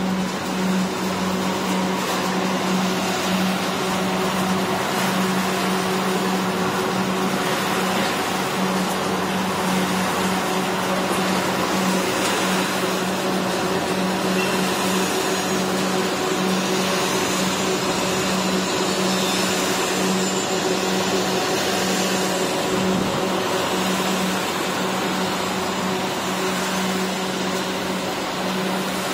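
Popcorn production-line machinery running steadily: a constant low motor hum under an even rushing noise.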